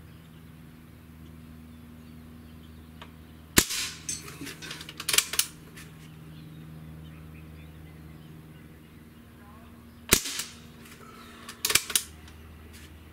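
Two shots from a CO2-powered Umarex Ruger 10/22 .177 air rifle, each a sharp crack, about six and a half seconds apart. Each shot is followed a second or two later by a few metallic clicks as the rifle is cocked by hand for the next single-action shot.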